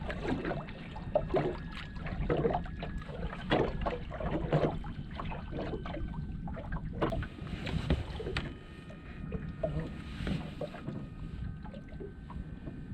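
Boat motor running low at trolling speed, a steady rumble, with water slapping irregularly against the hull.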